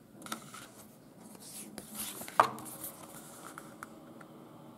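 Pages of a thick photo book being turned by hand: paper rustling and sliding, with one sharp snap of a page about two and a half seconds in.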